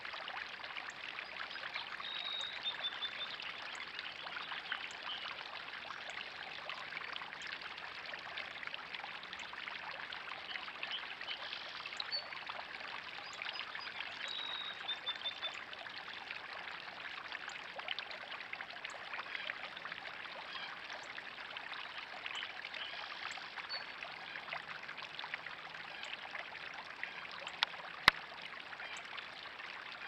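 Garden pond fountain jets and a small waterfall spilling from an upper basin, a steady splashing trickle of water into the pond. A single sharp click near the end.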